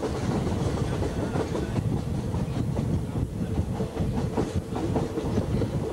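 Thai State Railway passenger train running at speed, heard from aboard: a steady rumble of the wheels on the track with irregular clickety-clack clatter.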